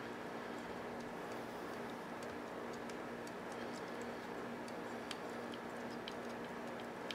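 Faint light clicks and taps of small parts of a cassette deck's transport being handled and cleaned, scattered and irregular, over a steady background hum.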